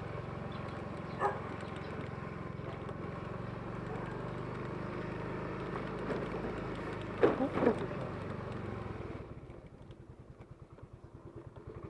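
Motor scooter engine running steadily, then falling to a quieter, evenly pulsing idle about nine seconds in. Short voice-like sounds break in about a second in and, louder, around seven seconds.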